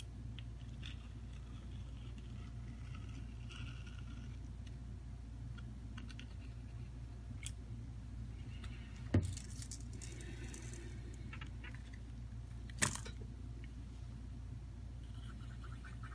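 Handling noise from phone repair work on a silicone mat: faint clicks and rustles over a steady low hum, with two sharper knocks, about nine and thirteen seconds in, as parts are handled and set down.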